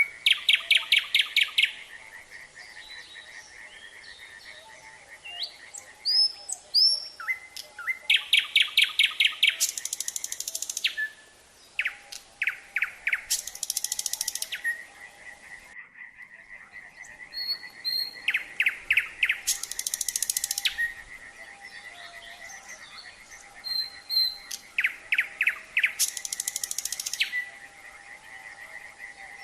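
Nightingale singing: loud phrases of rapidly repeated notes, whistles and buzzy rattles, coming in bursts a few seconds apart, over a steady chorus of frogs.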